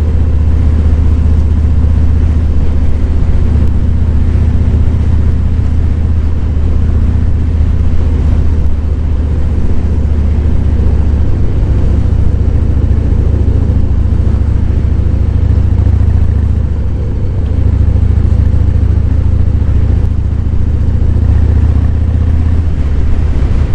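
Harley-Davidson Fat Boy 107's Milwaukee-Eight V-twin engine running steadily under way, with a deep low drone. The engine note shifts about eleven seconds in, then briefly drops and picks up again around seventeen seconds.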